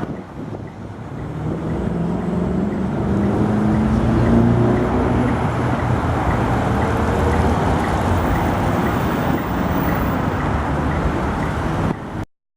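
Tram pulling away and passing close: a rising motor whine and a rumble that builds over the first few seconds, then steady running noise. The sound cuts off suddenly near the end.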